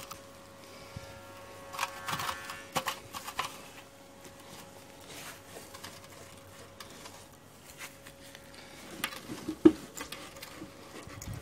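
Intermittent rustling and light knocks of hands handling the barbecue lid and cloth, with a single sharp knock near the end over a faint steady hum.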